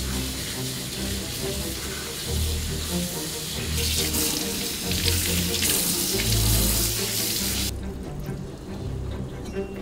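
Kitchen faucet running water over a whole squid being rinsed by hand in a stainless-steel sink, with the splash of the stream off the squid and hands. The water sound cuts off near the end.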